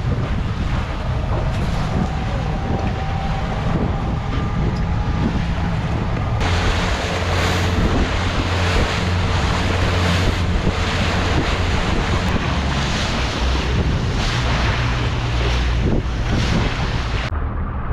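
Fishing boat under way: its engine drones steadily under the rush of wind and water, with wind buffeting the microphone.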